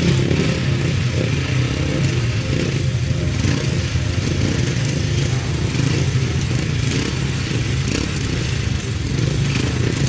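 Several grasstrack solo racing bikes' single-cylinder four-stroke engines running together at the start line, a steady engine note with a constant crackle, as the riders wait for the start.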